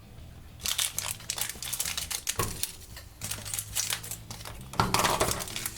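Crinkling and rustling of a small plastic packet being torn open and handled by hand, to get out a small toy figure.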